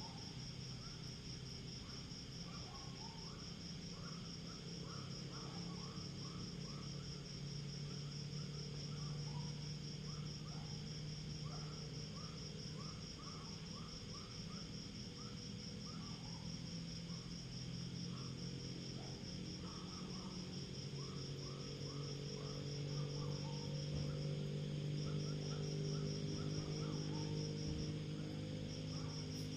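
Night insects, crickets among them, trilling steadily in a high pulsing chorus, with scattered shorter chirps lower down. Beneath them runs a low steady drone that grows louder in the second half.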